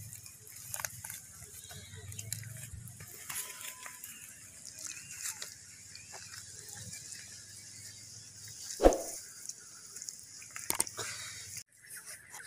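Bare hands digging and scraping in wet mud around a buried fish, with soft squelches and scrapes and one louder slap about nine seconds in.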